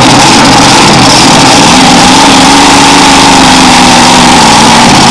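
Mini rod pulling tractor's engine idling loudly and steadily, stopped at the end of its pull.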